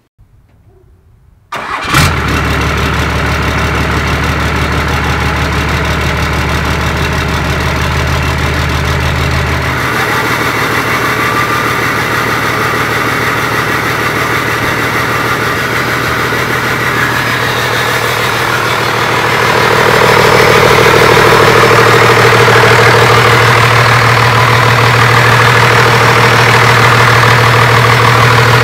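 First-gen Cummins 12-valve 5.9 L inline-six diesel, with a newly fitted 6.0 Powerstroke turbo, firing up about a second and a half in and then running steadily. The engine sound changes about ten seconds in and gets louder about two-thirds of the way through.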